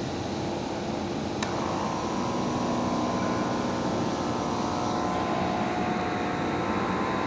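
Small DC motor spinning a synchronous motor in a homemade generator, running with a steady whirring hum. A sharp click comes about one and a half seconds in, and a steady whine settles in soon after.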